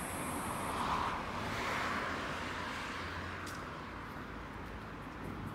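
Road traffic: a passing vehicle's tyre and engine noise swelling about a second in and then fading, over a steady low rumble.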